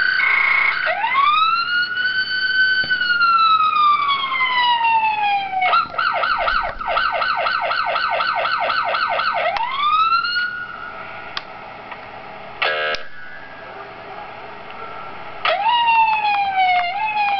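Electronic police siren from a 1:18 scale model police car's siren module. It gives one slow wail rising and falling, then a fast yelp for about four seconds, and cuts off about ten seconds in. A short buzzing blast comes near thirteen seconds, and the siren starts up again near the end.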